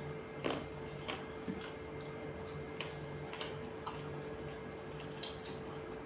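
Eating by hand from steel plates: scattered short clicks and smacks from chewing and from fingers mixing rice against the plates, about eight in all, over a steady faint hum.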